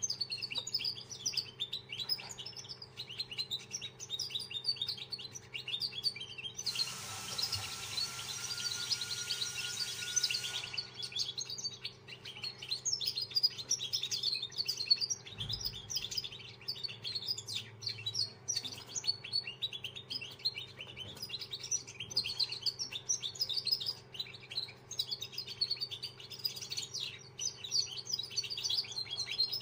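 A young songbird in training, singing a long, continuous run of rapid high chirps and twitters. About seven seconds in, a burst of hiss with a faint steady whistle covers it for about four seconds. A steady low hum runs underneath.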